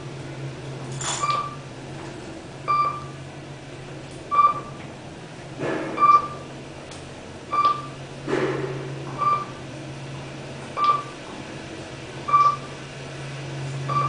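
Kone EcoSpace machine-room-less traction elevator car travelling up: a short electronic beep about every second and a half, one as the car passes each floor, over a steady low hum of the ride.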